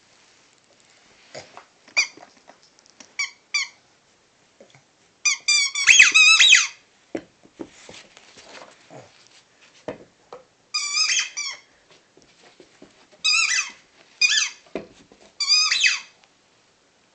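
A Boston Terrier puppy chewing a squeaky dog toy, setting off short wavering squeaks in clusters, the loudest run of several squeaks about six seconds in, with more around eleven, thirteen to fourteen and sixteen seconds.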